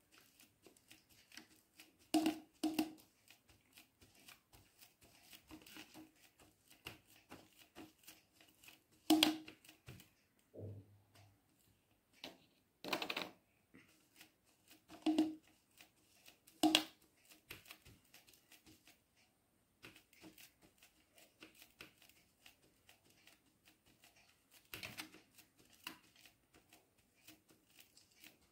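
Sponge dabbing paint through a paper stencil onto a curd container: irregular soft taps and paper rustles, with a few louder knocks scattered through.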